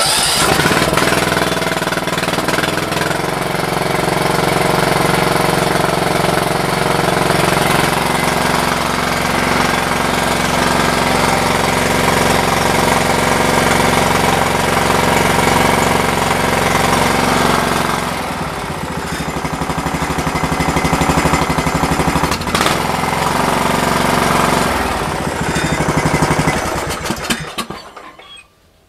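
A Husqvarna LT126 riding mower's Briggs & Stratton engine catches at once on choke and runs steadily. Its note changes and dips about 18 seconds in, then it is shut off shortly before the end. It is running as it should after the tank was emptied and its Nikki carburettor cleaned.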